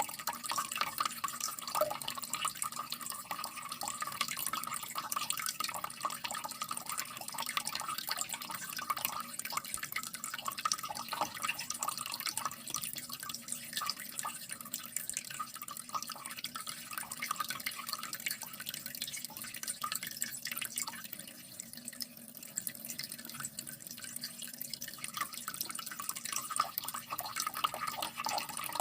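Water dripping and trickling in a steady patter of many small drops and splashes, easing a little past the middle.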